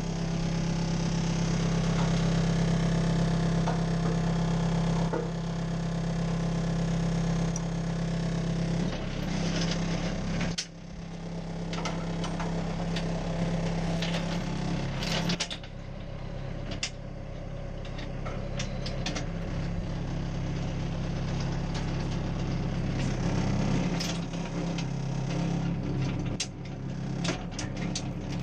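A tractor engine idling steadily. Its note dips briefly about ten seconds in and changes again around fifteen seconds, with scattered metallic clicks and knocks near the end.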